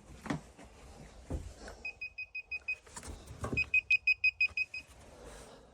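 Moisture meter beeping rapidly at a high pitch, about eight beeps a second in two runs, the second louder: its alert for a wet reading in the floor or wall. A few soft knocks of handling come in between.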